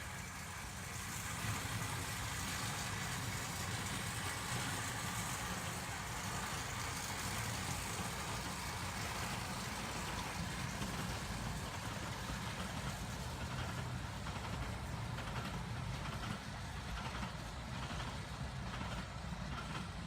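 Small park railway train running: a steady low rumble with mechanical noise, and faint regular clicks in the last few seconds that may be wheels on rail joints.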